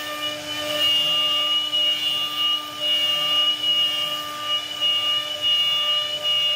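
CNC router spindle running with a steady high-pitched whine while its bit carves a floral relief into wood, the hiss of cutting rising and falling as the bit moves through the cut.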